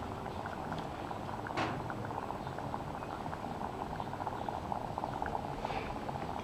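Aqua regia gold solution bubbling steadily in a glass bowl heated in a sand bath on a hot plate: a dense stream of small bubble pops. There is one brief click about a second and a half in.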